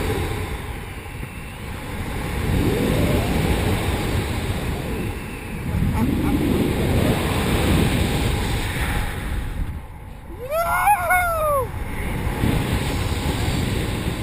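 Air rushing over the microphone of a paraglider in flight, swelling and easing in long surges as the wing swings through wingovers. About ten and a half seconds in, a short high pitched sound rises and falls within about a second.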